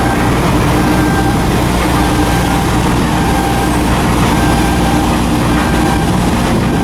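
A heavy engine running steadily with a low, even rumble, and faint short tones coming back about once a second.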